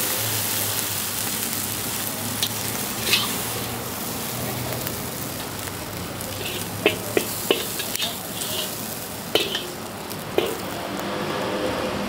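Pad Thai noodles sizzling and frying in a hot pan as they are stirred, with a steady hiss. Several sharp metal clicks from the spatula striking the pan, mostly in the second half.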